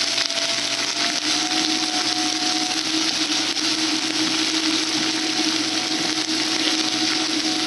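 Chopped bell peppers frying in canola oil in a cast-iron skillet, stirred with a wooden spatula: a steady sizzling hiss with a faint steady hum underneath.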